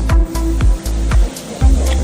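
Background music with a steady kick-drum beat of about two beats a second over a sustained bass line.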